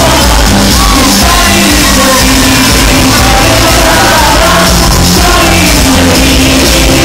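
Loud rock-style music with a singing voice over a steady beat, with some shouting or yelling.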